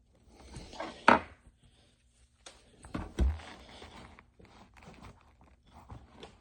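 Leather baseball glove being wiped down with a cloth: rubbing and handling noises, a sharp scrape about a second in, and two dull thumps about three seconds in.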